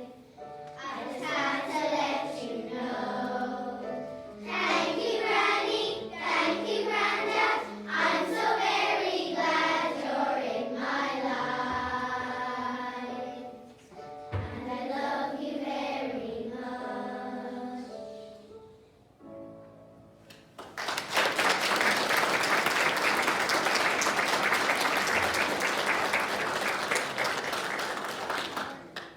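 A choir of young schoolgirls singing a song with instrumental accompaniment until the song ends about nineteen seconds in. After a short pause the audience applauds steadily for about eight seconds.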